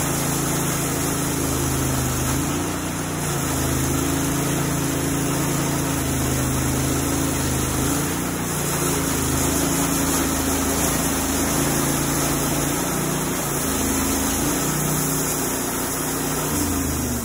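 Portable band sawmill running while its band blade saws lengthwise through a log, a steady engine hum whose pitch shifts a little every second or two as the load of the cut changes.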